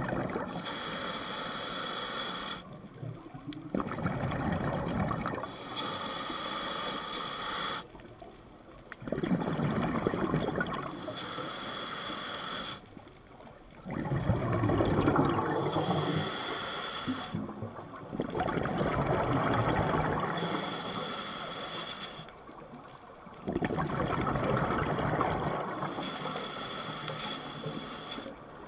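Scuba regulator breathing picked up through the camera's underwater housing: slow, regular breaths about every four to five seconds. Each breath is a hissing draw through the demand valve and a gurgling rush of exhaled bubbles, with a short quiet pause between breaths.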